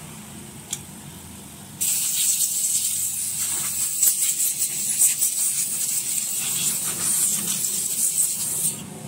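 Compressed air hissing out in a long steady blast from about two seconds in until near the end, blowing dust out of an opened laptop. A low motor hum runs underneath before the blast starts.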